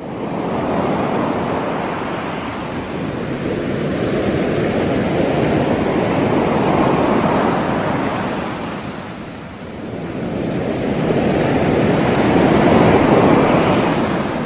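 Ocean surf washing in and ebbing in slow swells, with a lull about two-thirds of the way through before a bigger wave builds near the end.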